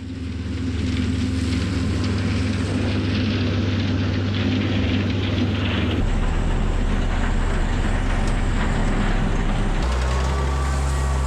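Farm tractor engines running steadily, the engine sound changing abruptly twice, about six seconds in and near the end, as one machine's sound cuts to another's.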